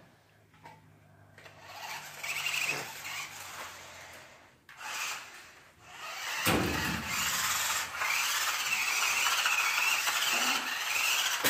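Small electric motor and plastic gears of a toy RC car whirring, with a wavering whine as its speed changes. A knock about six seconds in, after which the whir runs louder and steady.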